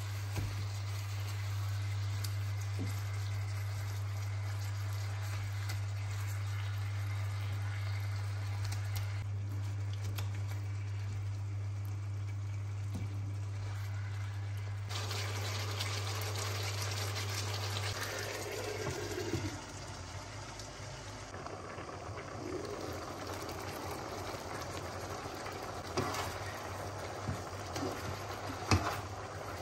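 Chicken pieces sizzling and bubbling in their own juices in a nonstick pan, cooked without oil, with tongs scraping and now and then clicking against the pan. A steady low hum stops about two-thirds of the way in.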